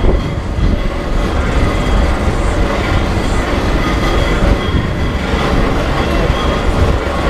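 Steady rumbling clatter of a passenger wagon rolling along the road behind a steam traction engine, its wheels and frame rattling, with a faint high squeal now and then.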